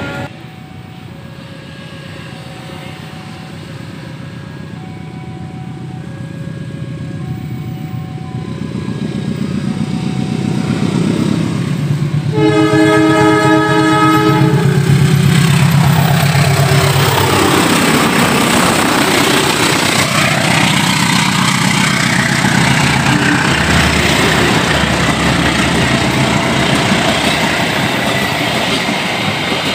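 A diesel-hauled passenger train approaches with its engine rumble growing louder, under a repeating two-tone electronic signal. About halfway through, the locomotive sounds its air horn once for a couple of seconds. The train then passes close by with loud wheel and wagon rattle, clickety-clack over the rail joints.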